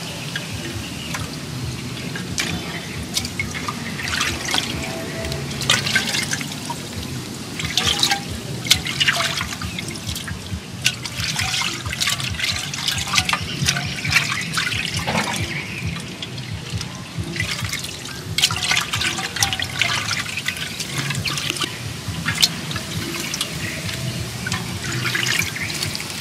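Water sloshing, splashing and dripping in a clay pot as hands wash raw skinned mouse meat by hand and lift the dripping pieces out. The splashes come in irregular bursts.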